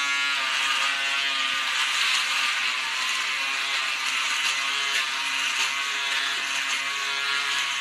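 Braun Series 3 electric shaver running with a steady buzz as it is moved over the stubble on a shaved scalp.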